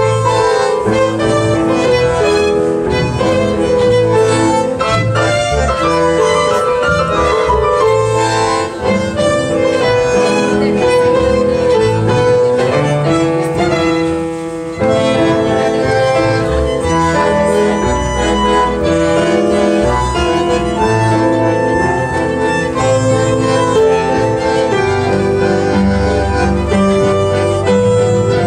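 Live tango quartet playing: bandoneon, violin, upright piano and bass guitar. The music dips briefly about halfway through, then comes back in full.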